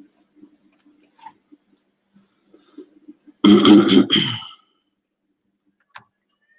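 A person's brief, loud throaty vocal noise lasting about a second, a little past the middle, among faint crackling blips from a video-call audio line that is breaking up.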